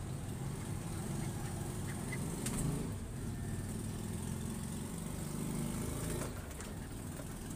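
Steady low rumble of distant road traffic, with a couple of faint clicks.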